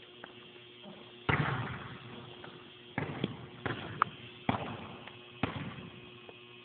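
A basketball bouncing on a hardwood gym floor: about six irregular thuds that echo in the gym, the loudest about a second in.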